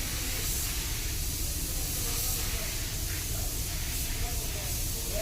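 Compressed-air spray gun hissing as it sprays clear coat onto a car panel, the hiss swelling and easing with the passes.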